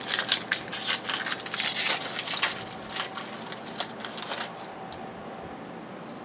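Crinkling of a foil trading-card pack wrapper and cards being handled, dense and scratchy for about four and a half seconds, then dying away to a faint steady hum.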